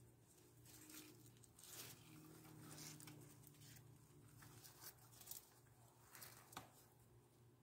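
Faint, irregular rustling and scratching of a cat nosing among the leaves of a potted plant, over a low steady room hum.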